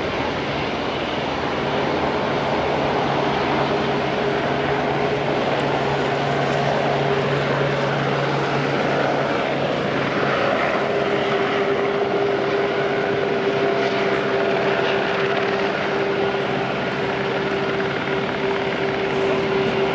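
Airbus A350-900 XWB's Rolls-Royce Trent XWB turbofan engines running at low taxi power as the airliner rolls along the taxiway: a steady jet rush with a steady hum that grows stronger about halfway through.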